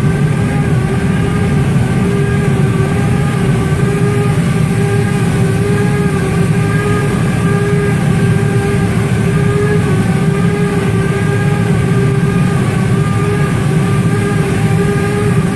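Fireproofing spray rig running steadily while WR Grace Monokote cementitious fireproofing is sprayed through a compressed-air pole gun: a constant loud drone with a steady hum over it and a faint hiss.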